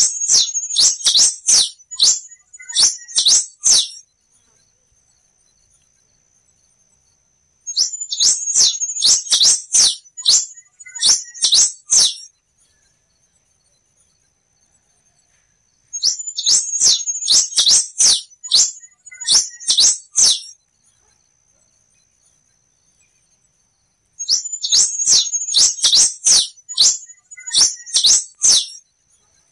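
Black-and-rufous warbling finch (quem-te-vestiu) singing: four bouts of rapid, high chirping notes, each lasting about four seconds, about eight seconds apart.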